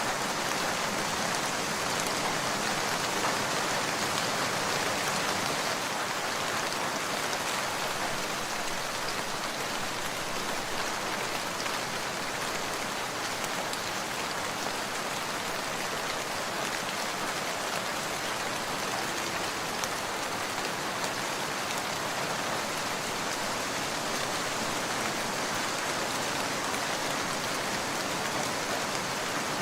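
Steady rain falling, an even hiss of many drops with no thunder, slightly heavier for the first few seconds.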